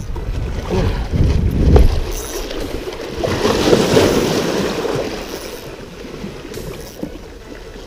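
Water sloshing and lapping, with low rumbles of wind on the microphone during the first two seconds. The water noise swells about three seconds in and then fades.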